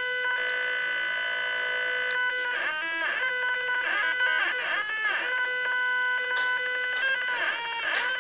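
Stepper motors turning an Etch-a-Sketch's knobs under CNC control. They whine at one steady pitch for the first couple of seconds, then in repeated rising-and-falling pitch sweeps as the motors speed up and slow down along the drawing path.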